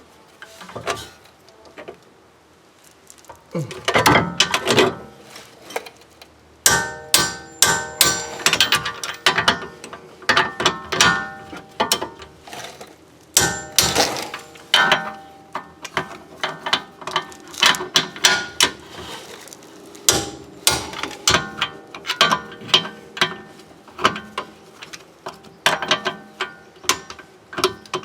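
Torque wrench ratcheting in quick runs of metallic clicks as the rear hub bolts are tightened to 72 ft-lb. It is mostly quiet for the first three seconds, with repeated strokes of clicking after that.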